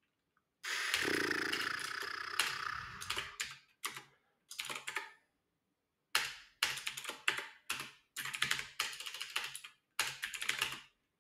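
Computer keyboard being typed on in bursts of rapid keystrokes separated by short pauses, as a terminal command is entered. The typing is densest in the first few seconds, stops for about a second near the middle, then resumes in quick bursts.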